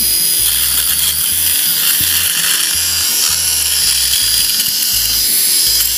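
Binnis 3-in-1 rotary electric shaver running steadily while pressed against the chin, cutting beard stubble.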